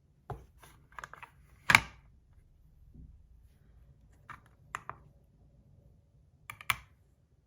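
Scattered short clicks and taps of a small brass magnetic slider fidget being handled and set on a digital scale, with one louder knock a little under two seconds in and another pair of clicks near the end.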